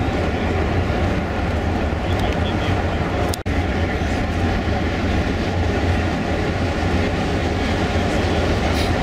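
Steady low rumble with a hiss over it, broken by a split-second dropout about three and a half seconds in.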